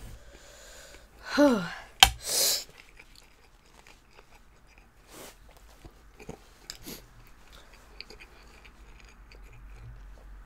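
A person groans briefly with falling pitch about a second and a half in, then lets out a sharp hissing breath through the mouth, the reaction to the burn of very spicy noodles. After that come soft eating sounds with a few small spoon clicks as yogurt is eaten.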